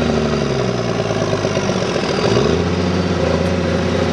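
Allis-Chalmers D-19 tractor's six-cylinder engine pulling a plow: its revs sag gradually for about two seconds as it lugs under the load, then pick back up about halfway through and run steadily again.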